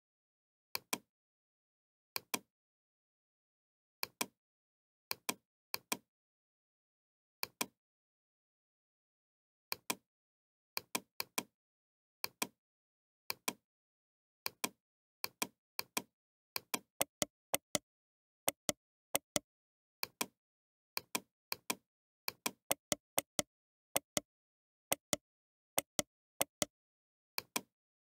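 Computer mouse clicking: short, sharp clicks, many in quick pairs, with dead silence between. They are sparse at first and come faster, about one or two a second, in the second half.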